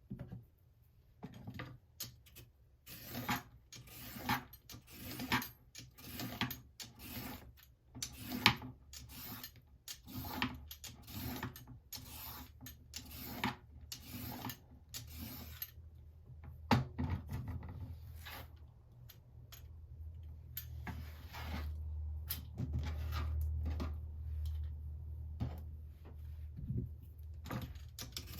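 Vegetable peeler scraping down a carrot in repeated short strokes, about two a second, becoming sparser in the second half. A low hum rises under the strokes later on.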